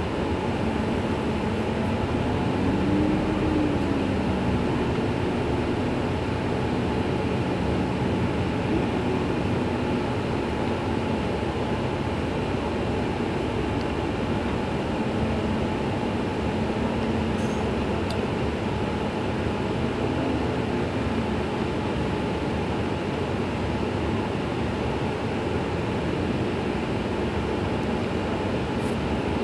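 Iveco Crossway LE CNG city bus idling at a stop: a steady natural-gas engine rumble with a constant faint whine. A pitched hum briefly rises and falls a couple of seconds in and again about twenty seconds in.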